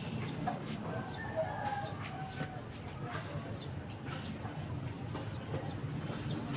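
Chickens clucking in the distance: short calls, mostly in the first half, over a steady low hum and scattered light knocks.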